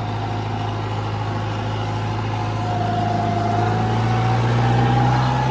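Tractor engine running steadily under light load, its pitch creeping slightly higher over the last few seconds.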